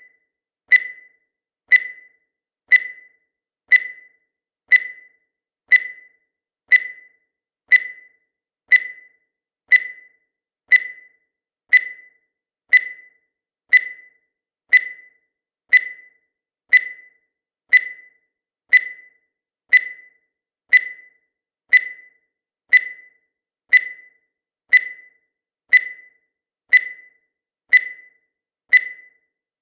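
Countdown timer sound effect: a short, high-pitched beep once every second, each one fading quickly, steady and evenly spaced.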